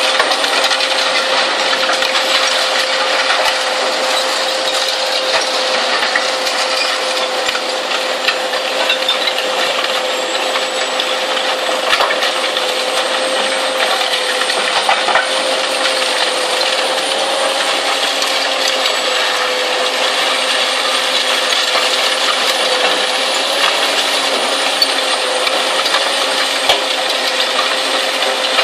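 Zato Blue Devil twin-shaft shear shredder tearing up scrap metal: dense clattering and crunching of metal pieces over a steady hum from the running machine.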